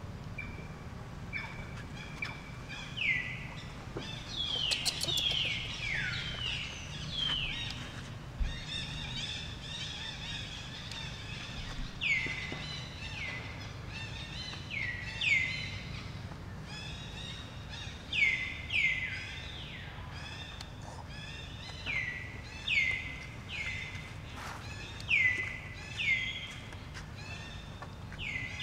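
High-pitched animal calls: many short notes, each sliding quickly down in pitch, repeated irregularly and sometimes overlapping, over a steady low background hum.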